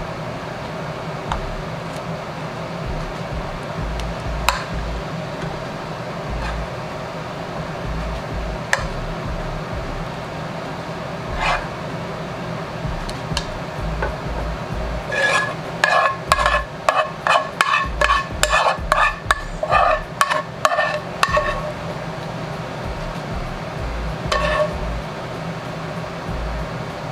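A metal spoon scraping and clinking against a frying pan while shrimp and garlic butter sauce are spooned out onto a plate. There are scattered single clinks, then a quick run of ringing clinks for about six seconds in the middle.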